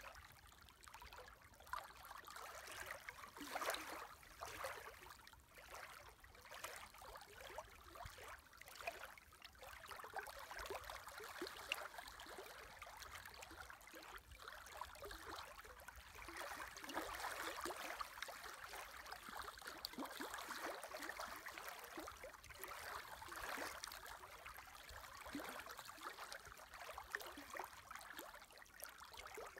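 Faint lapping of small wind-driven waves on a lake: a steady wash of water with many small splashes and trickles, a little fuller in the middle.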